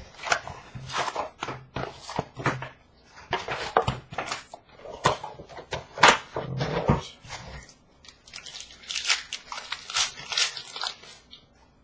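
Trading card packs being handled and torn open: irregular crinkling and rustling of foil pack wrappers and cards, in quick, uneven crackles that thin out near the end.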